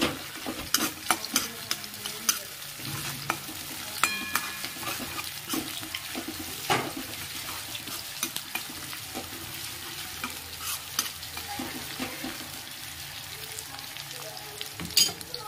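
Sliced onions sizzling in hot oil in a kadai as they are sautéed slowly, with a spatula stirring and scraping and frequent sharp taps against the metal pan.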